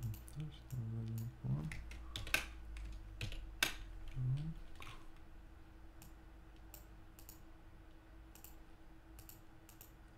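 Irregular clicks of a computer mouse and keyboard, clustered in the first four seconds and thinning to scattered single clicks after that.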